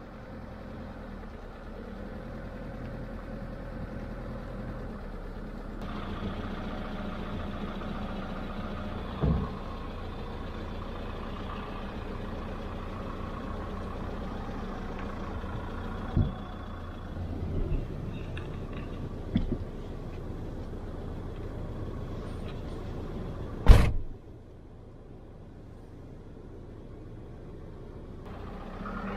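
Camper van engine running steadily at idle, with a few light knocks and one loud thump near the end, after which the engine sound is quieter.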